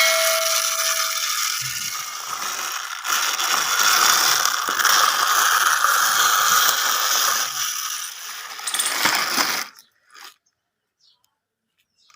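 Plastic toy construction vehicles at work: a dense, continuous rattling and ratcheting clatter of toy mechanisms that cuts off suddenly near the end, leaving a few faint clicks.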